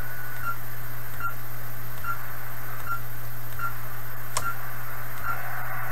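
Kenwood TS-430S transceiver giving a short key beep for each 1 MHz step as its frequency is stepped down, about seven evenly spaced beeps, over steady receiver hiss from the speaker. A single sharp click comes about four and a half seconds in.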